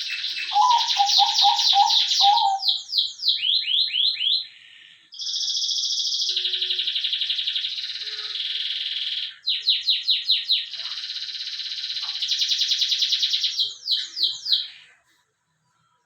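A songbird singing a long, fast song of high rapid trills broken up by runs of quick downward-sweeping notes, with a few short pauses. A lower, repeated note sounds under it near the start.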